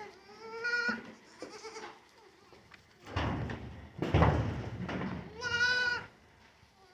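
Young dairy goats bleating, two separate cries about five seconds apart with a rougher, noisy burst of sound between them; the kids are crying in distress after being dehorned.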